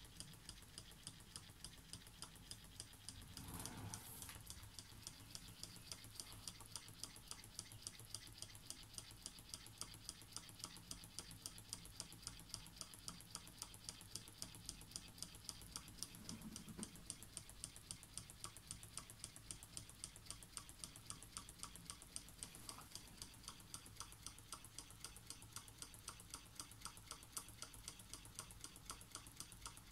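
Indian-made copy of a Wiggers Stirling engine running, its moving parts giving a faint, steady light ticking about three times a second. There is a brief faint rustle about four seconds in.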